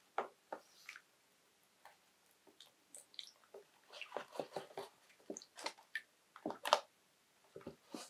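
Wet batik cloth pressed and kneaded by hand in a shallow dye bath lined with plastic sheeting: irregular wet squelches and small splashes, the loudest a little before the end.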